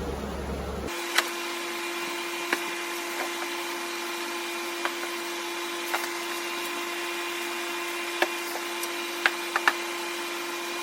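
A few sharp, scattered wooden knocks and clicks as glued stool legs are handled and fitted into the seat's mortises, over a steady hum.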